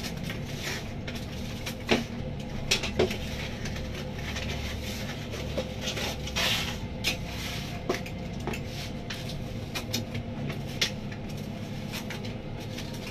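Kitchen work clatter in a commercial pizza kitchen: scattered sharp knocks and clicks of things being handled at a counter, and a brief scrape about halfway through, over a steady low hum of kitchen equipment.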